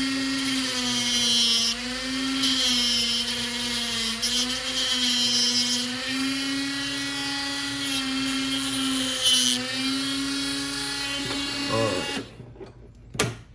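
Dremel rotary tool on a flexible-shaft handpiece running with a cut-off wheel, grinding away the inside of a plastic flip-open scope cap: a steady motor whine that wavers slightly in pitch as the wheel bites, stopping about twelve seconds in. A single sharp click follows near the end.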